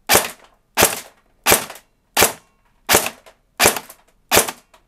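Cyma SR25 airsoft electric gun (AEG), with a high-speed motor on an 11.1 V LiPo, firing seven single shots on semi-auto, evenly spaced a little under a second apart, into a chronograph.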